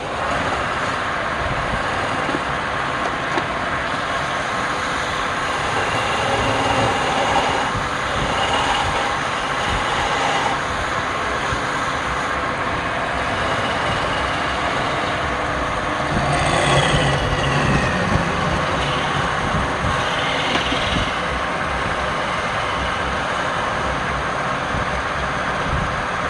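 Wood lathe running steadily, with short high squeals coming and going.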